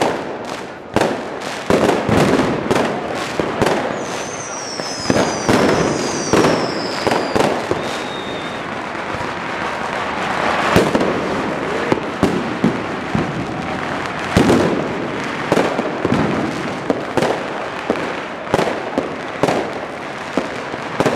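Fireworks and firecrackers going off all around in a dense, irregular barrage of bangs and crackles. About four seconds in, a few high-pitched falling whistles cut through.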